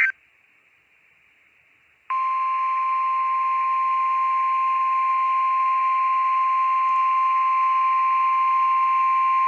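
NOAA Weather Radio warning alarm tone, a single steady 1050 Hz tone announcing a severe thunderstorm warning. It begins about two seconds in, after a short quiet gap, over faint radio hiss; a data burst cuts off right at the start.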